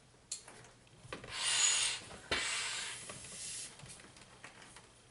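Hand pump inflating a chamber of a Sevylor Quikpak K1 inflatable kayak: two strokes of air rushing through the pump and hose, each about a second long, the second starting abruptly, with a click near the start.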